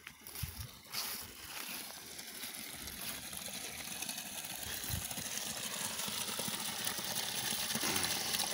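Spring water running down from a basin and pouring out of a small channel into a rivulet, a steady splashing trickle that grows louder as it is approached. A couple of soft knocks near the start.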